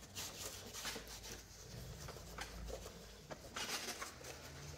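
A gloved hand wiping down the plastic frame of a SNOO smart bassinet while sanitizing it: faint, irregular rubbing and scuffing strokes, with a louder cluster of strokes a little past halfway.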